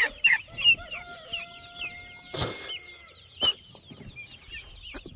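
Flock of backyard chickens calling, with many short high falling chirps throughout and a long, steady drawn-out call held for about two seconds from just under a second in. A short burst of noise cuts in about halfway through.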